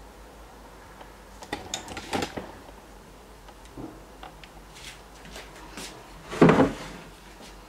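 Kitchen handling sounds at a glass mixing bowl of waffle batter and an open waffle iron: a few light clicks and knocks about two seconds in, then one louder clunk about six and a half seconds in, as a hand reaches into the bowl.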